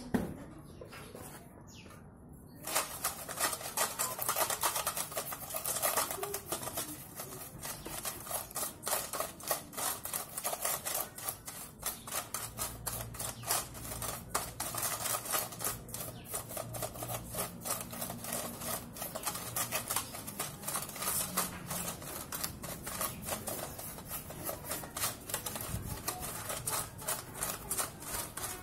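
Brush scrubbing a bicycle chain and cassette sprockets in a metal tin of cleaning fluid: a fast, continuous stream of scratching and small metallic clicks, starting about two and a half seconds in.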